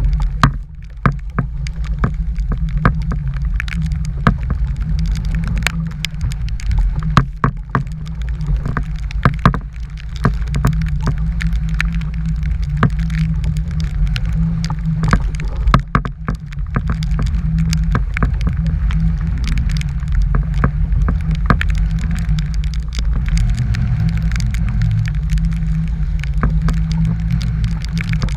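Gale-force wind buffeting the microphone as a steady low rumble, with many sharp ticks and knocks scattered through it.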